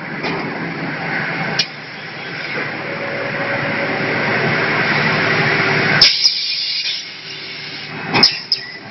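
Vacuum forming machine hissing with rushing air, growing louder for several seconds and then cut off sharply with a click about six seconds in. After it comes a lower steady machine hum with a couple of sharp clicks near the end.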